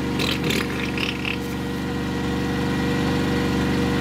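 Petrol generator engine running steadily. A few light clicks or clatters come in the first second or so, and a faint steady whine joins about halfway through.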